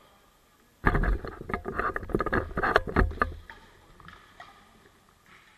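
Loud rustling and knocking right at the microphone for about two and a half seconds, starting about a second in: handling noise from something brushing against the camera.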